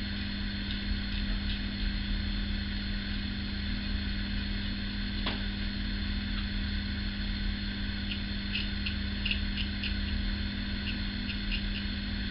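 Faint scratchy strokes of a single-edge safety razor cutting stubble around the chin, a short run of them about two-thirds of the way through, over a steady low electrical hum.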